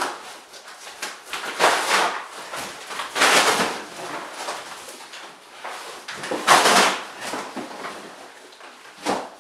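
Cardboard shipping box and the plastic-wrapped rolled mattress inside it scraping and rustling as the mattress is hauled out, in a few separate swishes of noise.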